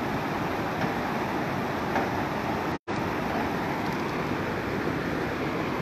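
Steady rushing noise of a flood-swollen, fast-flowing muddy river, with a momentary break in the sound nearly halfway through.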